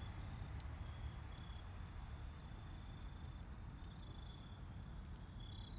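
Quiet night ambience: light patter and rustle of a dog's paws on dry pine needles over a low rumble, with a faint high-pitched trill that comes and goes in short stretches.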